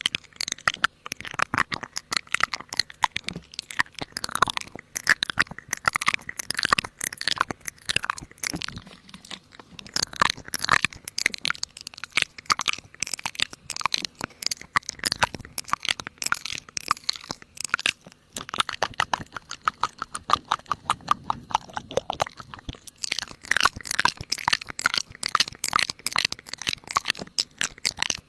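Continuous crunching and crackling: many rapid, irregular crisp clicks, running for a while as a fast, even ticking near the middle.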